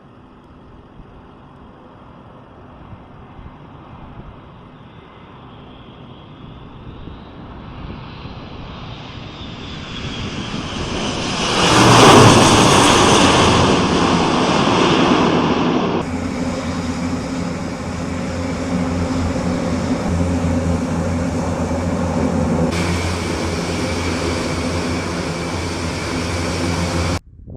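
Airbus A400M turboprop transport's four propeller engines: the aircraft grows steadily louder as it approaches, is loudest as it passes about twelve seconds in, then eases off. About four seconds later the sound changes abruptly to a steady propeller-engine drone with several steady tones, which cuts off just before the end.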